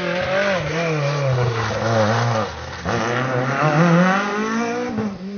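Rally car engine at full effort on a stage: the engine note falls for the first couple of seconds, drops away briefly about halfway through, then climbs again as the car accelerates hard, loudest near the end.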